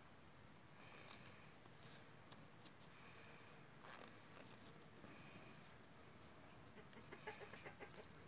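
Near silence, with faint rustling and small crackles as a strip of plastic grafting tape is stretched and wound around an eggplant graft on a potato stem; the crackles bunch up near the end.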